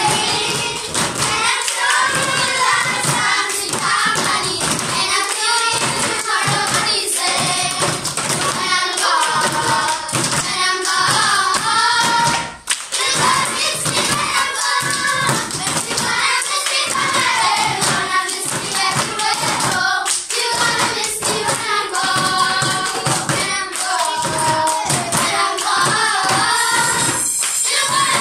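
A group of children singing a lively song together, keeping time with rhythmic hand clapping. The song breaks off for a moment about halfway through.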